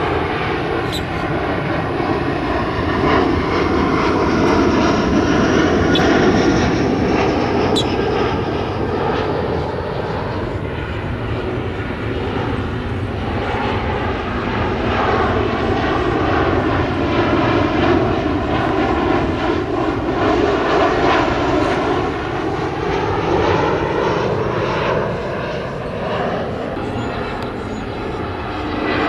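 Airliner engine noise as a plane passes the runway, a steady rushing sound whose tone slowly sweeps up and down as it goes by.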